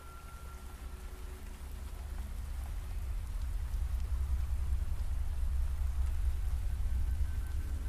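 Steady rain falling on pavement and foliage, with a deep low rumble beneath it that grows louder over the first few seconds.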